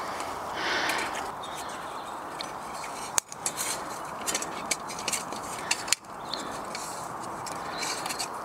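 Twigs clicking and crackling as kindling is fed into a Tomshoo wood gas stove that is just being lit, with two sharper snaps about three and six seconds in.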